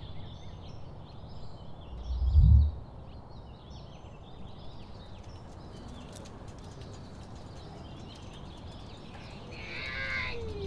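Small birds chirping and twittering over a low outdoor rumble, with one heavy low thump about two and a half seconds in. Near the end a brief voice with a falling pitch.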